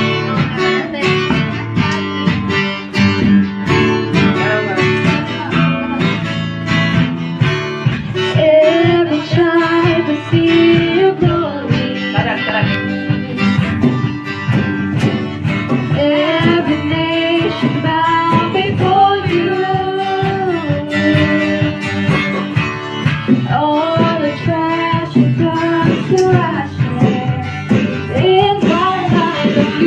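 Live jam of a song: acoustic guitar strummed with drums keeping the beat, and from about eight seconds in, female voices singing the melody into microphones over it.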